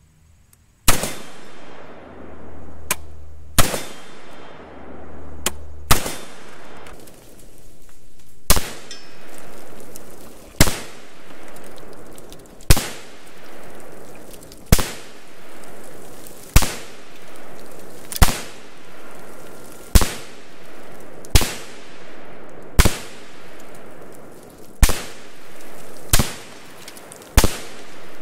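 PTAC AR-15 semi-automatic rifle in 5.56/.223 firing single shots at a slow, even pace: about fifteen shots, roughly two seconds apart.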